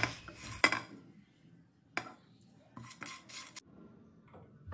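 Whole spices being stirred in a dry nonstick frying pan with a silicone spatula: a few short scrapes and rattles of seeds against the pan, with near-silent gaps between.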